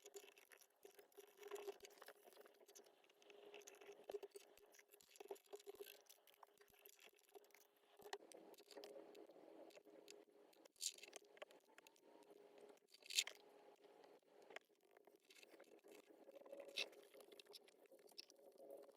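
Faint scraping, crunching and clicking of small screws and rack hardware being fitted into a cabinet with a hand screwdriver, with two sharper clacks about 11 and 13 seconds in. A faint steady hum sits underneath.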